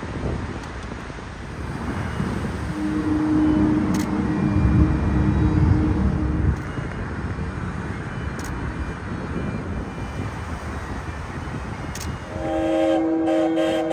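Ships' horns sounding in salute over a steady low rumble and wind: one horn blast holds a single steady note for about four seconds, then near the end several horns sound together as a chord.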